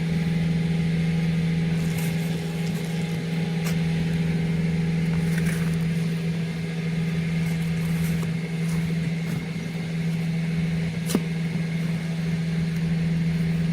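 Septic pump truck's engine and vacuum pump running with a steady drone. A single sharp knock about eleven seconds in.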